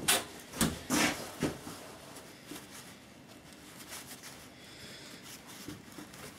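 Four short rustling handling noises in the first second and a half, then faint rubbing as a cloth wipes inside the belt sander's opened gearbox.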